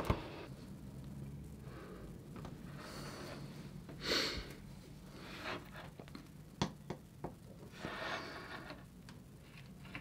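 Quiet bench handling of small metal hand tools: a few light clicks and taps as scissors, tweezers and pliers are picked up and set down on a cutting mat, with two short hissy rustles, over a faint steady low hum.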